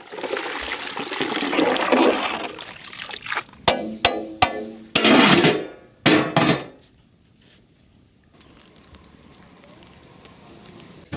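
Soaked sago and water pouring from a large aluminium basin into a big metal cooking pot, a rushing pour lasting about three seconds. Then a few metallic knocks and clatters about four to six seconds in, as the pot's lid goes on.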